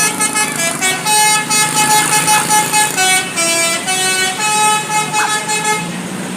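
Bus 'telolet basuri' musical air horn playing a tune: several horn tones sounding together, stepping from note to note.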